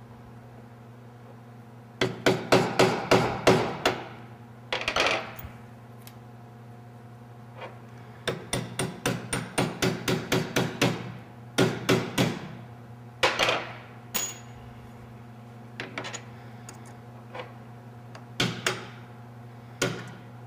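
Hammer tapping a pin punch to drive the roll pin through a new nitrided steel gear on an MSD Pro-Billet distributor shaft: a quick run of sharp taps about two seconds in, a longer run of lighter taps around the middle, then scattered single blows.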